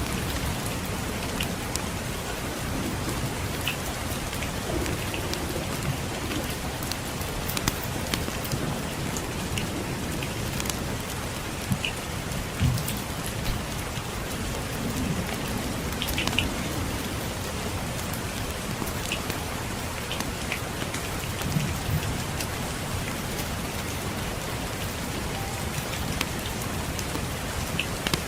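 Steady rain falling, mixed with scattered sharp pops and crackles from a wood fire, over a low rumble.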